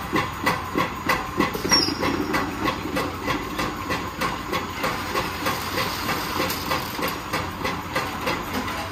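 K-cup variety pack packing machine running: a rapid, regular clacking about three times a second over a steady mechanical hum and hiss.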